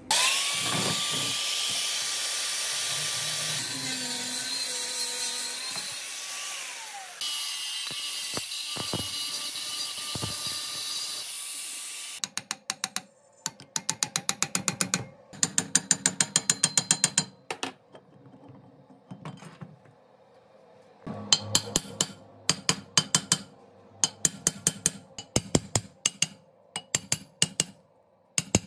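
A handheld power tool spins up and runs with a loud hiss for about twelve seconds, its motor pitch dropping briefly about seven seconds in. Then a ratchet wrench clicks in repeated short bursts, working bolts during disassembly.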